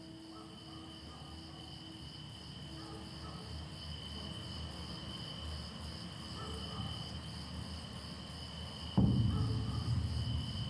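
A steady, high chirring of insects, typical of crickets, over a low rumble. Faint ringing tones fade out in the first few seconds, and about nine seconds in a loud low rumble comes in suddenly and stays.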